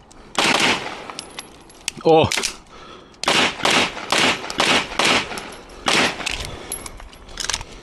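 A string of handgun shots, fired in quick pairs and singles at uneven intervals, each a sharp crack with a short echoing tail.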